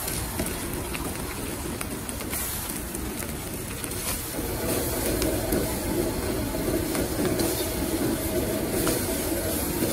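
Stir-frying in a street-stall wok: the steady roar of a gas wok burner, with sizzling and the clink and scrape of a metal spatula against the wok. The roar gets louder about halfway through.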